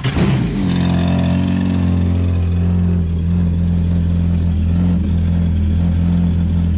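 Yamaha SHO Cruiser waverunner's supercharged 1.8 L four-cylinder engine just firing up and settling within about half a second into a steady idle, run to warm up before an oil change.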